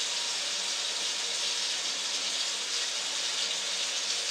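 Kitchen tap running steadily into the sink.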